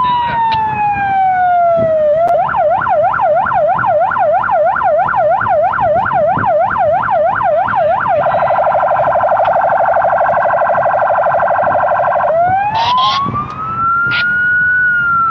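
Police patrol car's electronic siren cycling through its tones. It ends a slow falling wail, switches to a fast yelp of about two sweeps a second, then to a rapid warble about eight seconds in. About four seconds later it swings into a rising wail.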